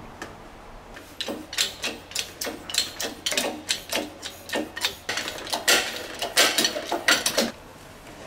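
Irregular sharp metallic clicks and clanks, a few a second, from a steel press key and a differential housing being set up under a hydraulic shop press to push out the pinion gear. They stop about seven and a half seconds in.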